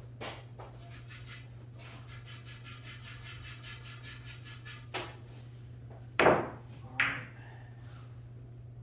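Light rhythmic scraping for about three seconds, then sharp knocks, two of them close together a little over halfway through, over a steady low hum.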